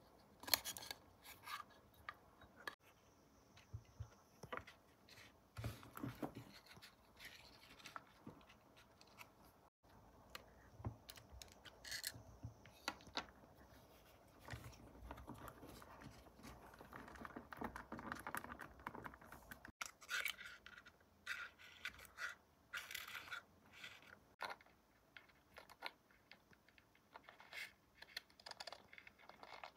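Faint handling noises of small plastic parts: scattered light clicks and taps, with a longer stretch of scratching in the middle, as a pencil marks a plastic panel.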